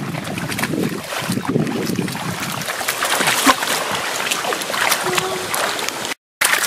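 Bare feet and hands sloshing and splashing through shallow muddy water, with wind rumbling on the microphone. The sound cuts out for a moment near the end.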